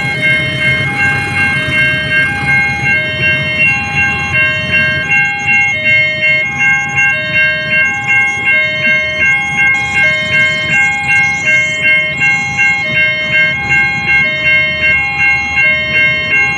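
Railway level-crossing warning alarm with an American-style siren sound edited in: two tones alternate high and low, switching about every 0.7 seconds, over steady higher ringing tones that pulse about twice a second.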